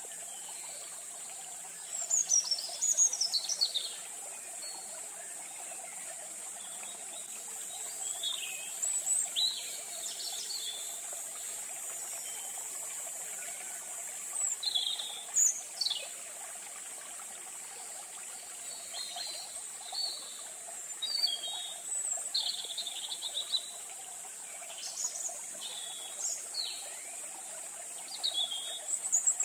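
Wild birds chirping in short, scattered calls and quick sweeping notes, some a few at a time, over a steady high insect drone.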